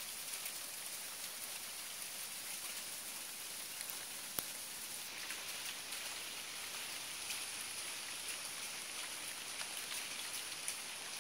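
Icy snow pellets falling on a corrugated metal roof: a steady hiss of countless fine ticks, with one sharper tick about four seconds in.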